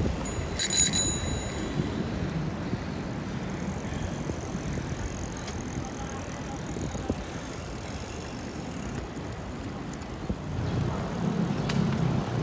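A bicycle bell rung in a quick ring-ring about half a second in, the loudest sound. After it, the steady wind and rolling noise of a bicycle riding along.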